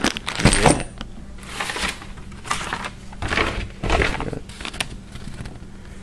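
Plastic packaging rustling and bagged parts being handled, in irregular bursts about once a second.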